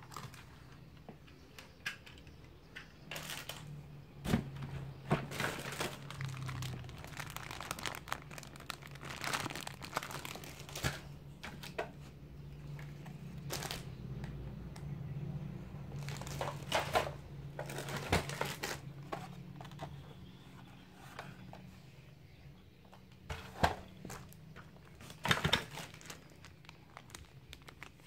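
Plastic packaging crinkling and rustling as toys are handled and lifted out of a cardboard box, in irregular bursts, over a steady low hum.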